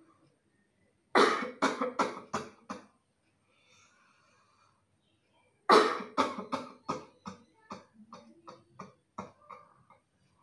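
A person coughing deliberately in two bouts. About a second in come five hard coughs in quick succession. Past the middle a longer run of coughs starts loud and trails off weaker toward the end.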